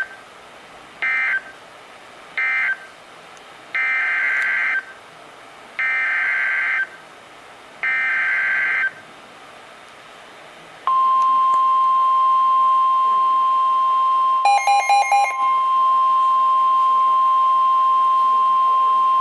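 Emergency Alert System data bursts and attention signal: three short warbling bursts (the end-of-message code), then three longer one-second bursts (the SAME header of the next alert). After them a single steady attention tone of about 1 kHz, the National Weather Service 1050 Hz alert tone, sounds for about nine seconds. A brief flutter of pulsed beeps cuts in about halfway through the tone.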